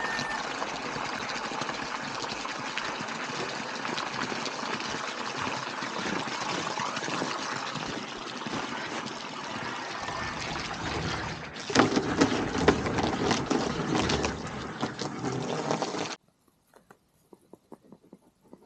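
Water running steadily; about twelve seconds in it grows louder and rougher, with a deeper rush and a few knocks, then cuts off abruptly, leaving only faint clicks.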